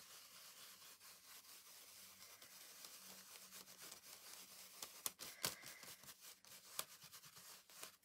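Faint scrubbing of a foam ink-blending tool being swirled and dabbed over a stencil on textured card, with many small ticks and taps, a few louder around the middle.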